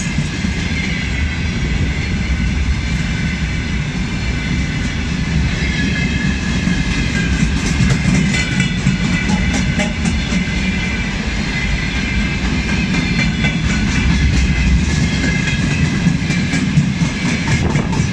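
Freight train of open gondola wagons and tank cars rolling past at close range: a steady rumble of steel wheels on rail with a running clatter of wheels over rail joints.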